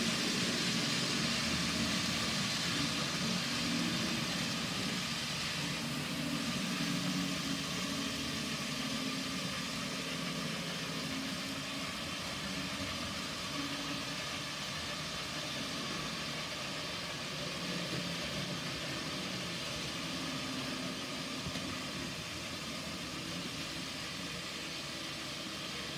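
N gauge model trains running: a steady whirring hum of small electric motors and wheels rolling on the rails, slowly getting a little quieter.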